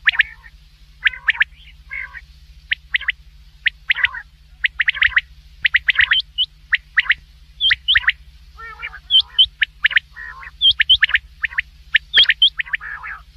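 Common quail calling over and over in quick groups of two or three sharp notes, mixed with softer, lower calls. A steady low hum runs underneath.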